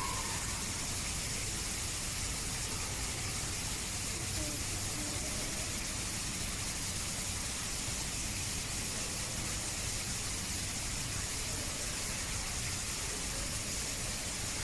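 Steady background hiss with faint, distant voices now and then.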